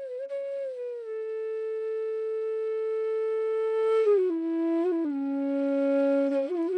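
Instrumental music: a solo flute holding long, steady notes, stepping down in pitch about four and five seconds in and rising again near the end.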